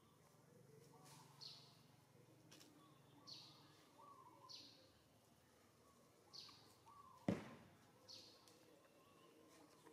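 A bird calling repeatedly, faint, with short high chirps that slide down in pitch every second or two. A single sharp knock about seven seconds in.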